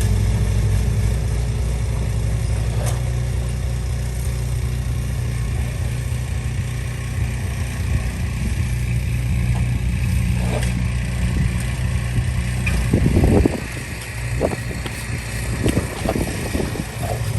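A snowblower's small engine running steadily, then dropping away about 13 seconds in, leaving scattered knocks and scraping.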